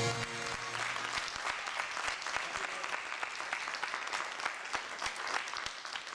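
Audience applauding, a steady patter of many hands clapping. A last note of the backing music dies away in the first half second.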